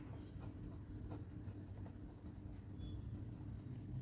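Pen writing on paper: faint, short scratching strokes as words are written by hand.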